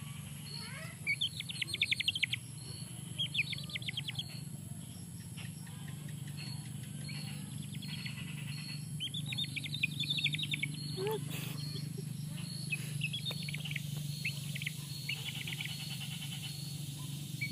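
Birds chirping in several bursts of quick trills, with a short high note repeating about twice a second, over a steady low hum.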